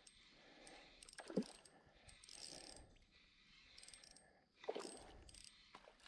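Faint, intermittent mechanical clicking of a fishing reel while a hooked fish is reeled in.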